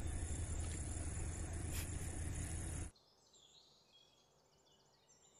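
Outdoor night ambience: a steady high-pitched insect drone over a low rumble and hiss, with a single click near the two-second mark. About three seconds in, the sound cuts off to a much quieter stretch of faint, repeated sweeping chirps from insects or birds.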